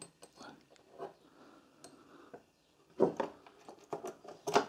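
Small metal parts of a socket ratchet's mechanism, the pawls and head, clicking and tapping lightly as they are fitted together by hand, with louder clicks about three seconds in and near the end.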